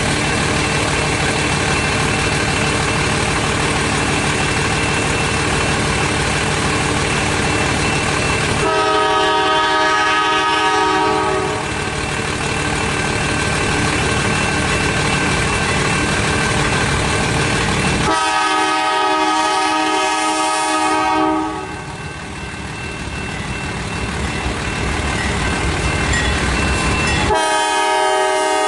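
CN diesel freight locomotive sounding its multi-note air horn: two long blasts about 9 and 18 seconds in, and a third starting near the end, over a steady rumble.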